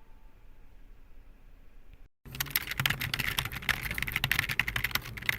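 Faint music fading out, then after a brief cut, about three seconds of loud, rapid clicking like typing on a computer keyboard.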